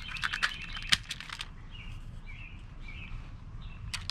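A spring-powered Walther PPQ airsoft pistol being cocked: a quick run of clicks and scraping as the slide is racked back, with a sharper click about a second in and one more click near the end. Birds chirp faintly in between.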